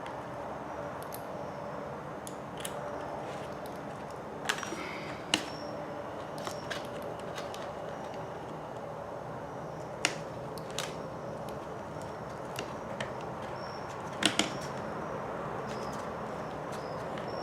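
Scattered clicks and taps of small RC kit parts and tools being handled during assembly, a few sharp ones standing out, over a steady low hum.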